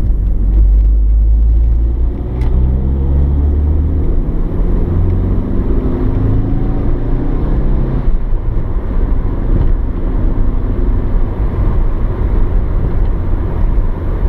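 Mitsubishi Lancer Evolution 6.5 TME's turbocharged four-cylinder engine pulling under acceleration, its pitch rising for the first several seconds, then settling into a steady run with road and tyre rumble.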